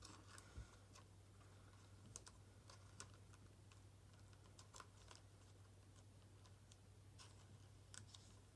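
Near silence with faint, scattered clicks from trading cards and a plastic card sleeve being handled, over a low steady hum.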